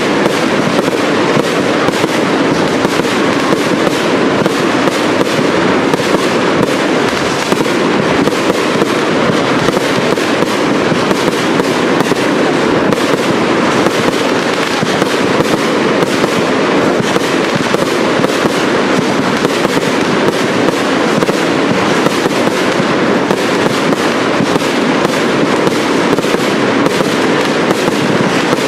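Fireworks display of cake batteries firing, a rapid, unbroken stream of shots and aerial bursts with no pauses.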